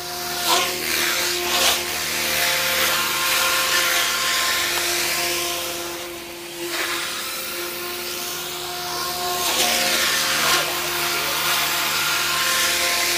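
Eachine Novice-I 75 FPV whoop drone in flight, its small brushless motors and ducted propellers whining and buzzing. The pitch rises and falls with the throttle and as it passes by, and the sound dips briefly about halfway through.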